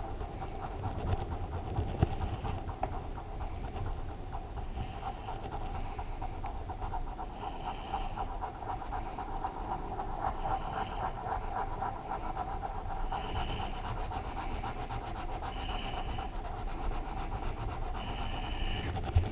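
Colored pencil scribbling on a coloring book page, with heavy breathing close to the microphone, a breath every two to three seconds. A short knock comes at the very end.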